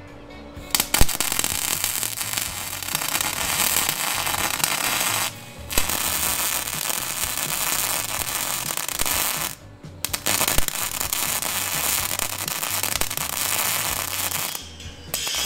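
Arc welding on steel chassis rails: a steady crackling sizzle in three long runs, broken by short pauses about five and ten seconds in.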